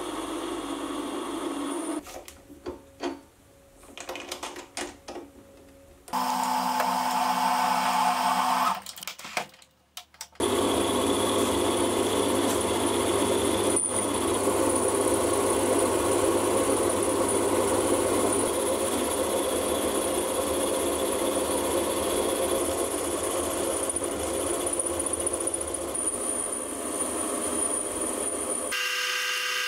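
Small metal lathe turning a steel bar supported on a live center, a carbide tool cutting along it: steady machine noise with a thin high whine through most of the second half. The sound drops away twice, from about two to six seconds in and again around nine to ten seconds.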